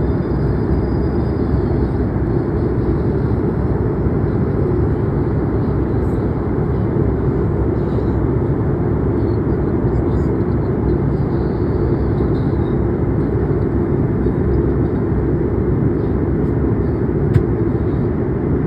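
Steady cabin noise of an airliner in descent: an even rumble of engines and rushing air, heaviest in the low end, with one small click near the end.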